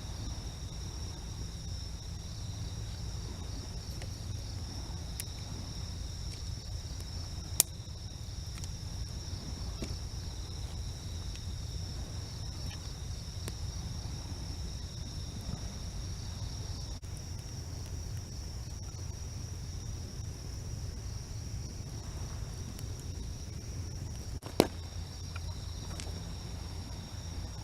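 Crickets and other insects singing in a steady, unbroken high-pitched chorus over a low, steady wash of waves. Faint scattered ticks throughout, and two sharp cracks, one about a quarter of the way in and one near the end.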